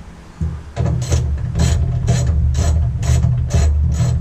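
Socket ratchet wrench clicking in a steady rhythm of about two strokes a second, starting about a second in, as a 12 mm bolt is run down.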